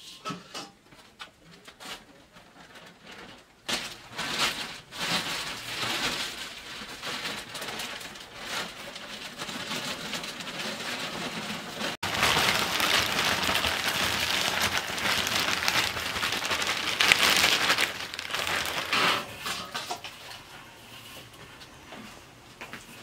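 A plastic bag rustling and crinkling as it is handled, in bouts from a few seconds in, loudest through the second half and fading near the end.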